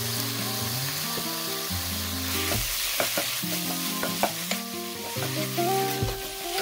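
Diced chicken thigh and onion sizzling in a nonstick frying pan, stirred with a wooden spatula that scrapes and clicks against the pan now and then. Background music plays steady notes underneath.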